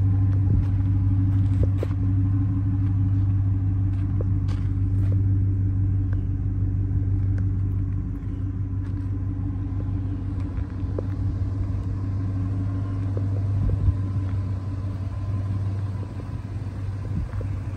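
Ford 6.2-litre gas V8 idling steadily, a low even rumble, with a few light clicks and taps over it.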